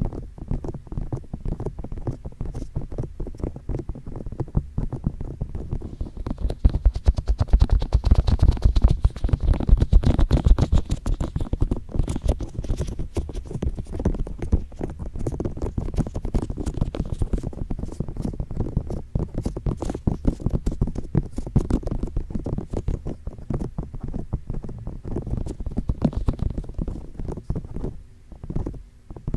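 Fingertips tapping and rubbing on microphone ears in quick, dense succession, giving muffled close-up thuds and scratchy touches; the tapping grows louder and heavier about seven seconds in for a few seconds.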